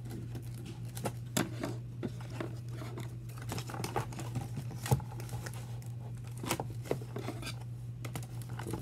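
Hands working at a toy's plastic and cardboard packaging: irregular clicks, taps and light rustles, with one sharper click about five seconds in.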